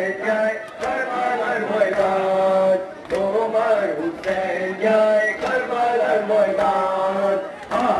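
A man's voice chanting an Ashura mourning lament (noha) through horn loudspeakers, in long held melodic phrases with short pauses between them.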